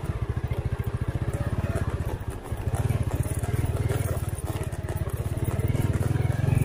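Honda Win 100's single-cylinder two-stroke engine running under load as the motorcycle rides over rough ground, its rapid firing pulses easing off a little after two seconds in, then building up again.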